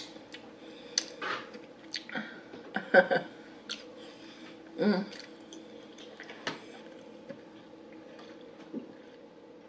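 Close-miked eating of creamy pasta: wet chewing and squelching with sharp clicks and lip smacks, plus a few brief mouth sounds around one, three and five seconds in. It quietens after about seven seconds.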